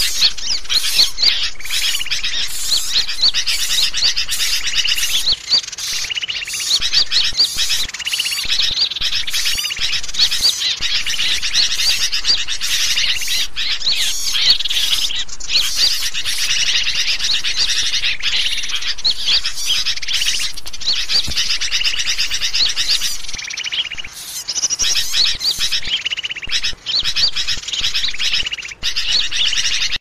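Bird-lure recording: a dense chorus of many small songbirds chirping, whistling and calling over one another almost without pause, busy like a bird market.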